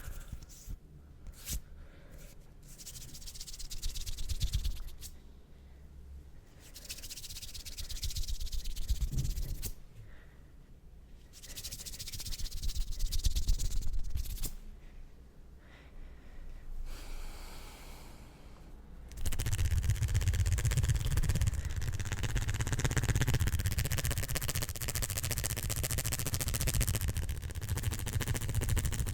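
Hands rubbing close to the microphone, making a hissing skin-on-skin friction sound. It swells and fades in four waves, then turns into louder, continuous fast rubbing about two-thirds of the way through.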